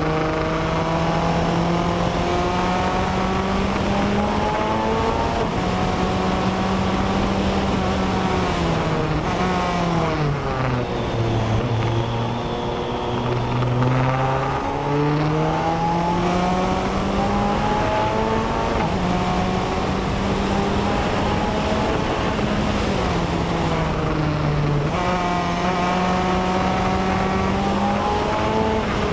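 BAC Mono's four-cylinder engine heard onboard at speed: its note climbs and drops in steps with the gear changes, falls low from about ten to fourteen seconds in, then climbs again, with wind rushing over the open cockpit.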